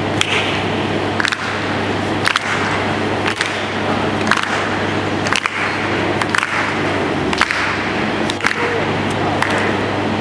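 Music with a steady beat, a sharp hit about once a second over a sustained backing.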